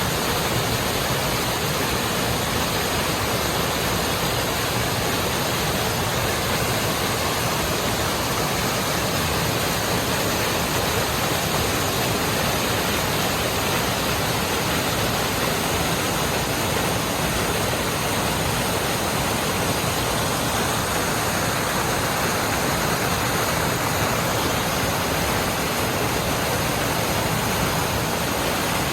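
Steady rushing of flowing water: an even, unbroken hiss that neither rises nor falls.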